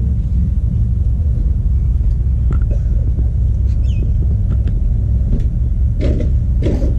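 Steady low rumble of a motor running while travelling, with two brief sounds near the end.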